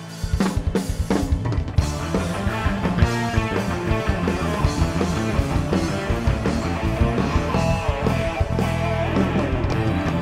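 Live rock band playing an instrumental passage. The full band with drum kit and guitar comes in loudly just after the start, out of a quieter sustained passage, and plays on with a dense, driving beat.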